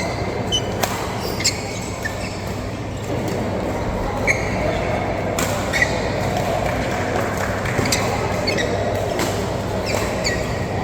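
Badminton doubles rally in a sports hall: sharp racket-on-shuttlecock hits about a second apart, with short squeaks of court shoes over a steady echoing hall background.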